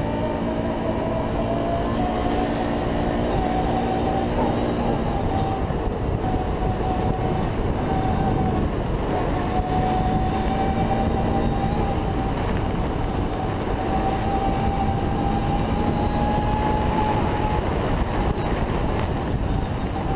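Can-Am ATV's V-twin engine running at steady cruising throttle, its pitch creeping slowly upward as it gathers speed. A dense low rumble of wind and tyres on the dirt track runs under it.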